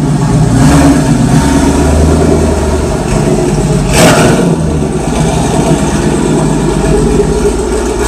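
1999 Pontiac Trans Am's LS1 V8 running at low speed as the car backs out, a steady exhaust rumble with one brief louder burst about halfway through.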